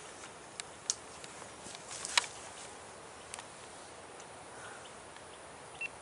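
Steady insect buzz of tropical woodland. A few sharp clicks or snaps break it, the loudest about two seconds in.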